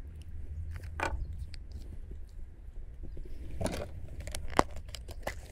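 Hands handling fishing tackle close to the mic: short rustles and small clicks, with one sharp click near the end, over a low steady rumble.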